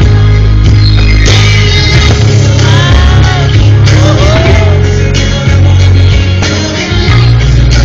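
Loud music: a rock song with a singing voice and guitar over a heavy bass line.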